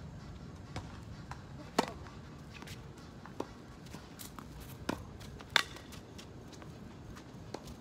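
Tennis rally on a hard court: about six sharp pops, unevenly spaced, from racket strings striking the ball and the ball bouncing. The loudest pop comes about five and a half seconds in.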